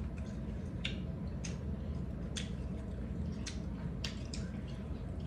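Wet, squishy eating sounds from a meal of rice and chicken soup: about six short smacks at uneven intervals over a low, steady room hum.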